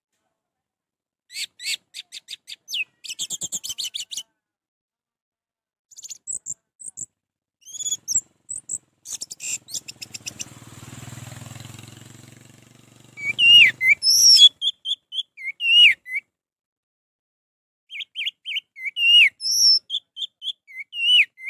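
Orange-headed thrush singing in bursts: fast rattling runs of short notes, then loud whistled phrases with quick up-and-down pitch slides. A soft low rumble passes under the song around the middle.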